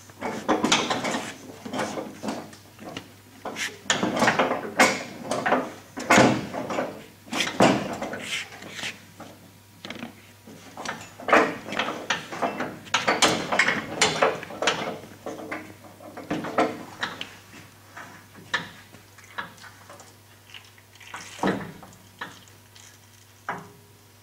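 Irregular clanks, knocks and scrapes of metal parts being handled, from work on a steel snowplow frame and its hydraulic ram. They are dense for most of the stretch and thin out to a few separate knocks near the end.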